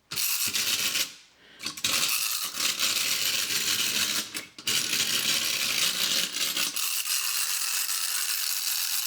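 Clockwork motor of a 1960s Japanese tin Robot-7 paddle-foot wind-up robot running, a continuous fast metallic rattle of its gears and tin body. It breaks off briefly about a second in and again near four and a half seconds, then runs on steadily.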